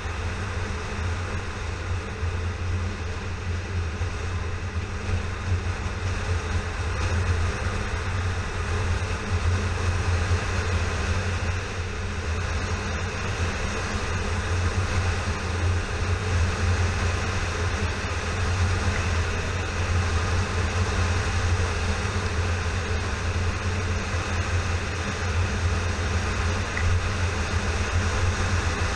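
Yamaha FZ6R motorcycle's inline-four engine cruising steadily, a low drone under a steady rush of wind and road noise, picked up by a camera riding on the moving bike.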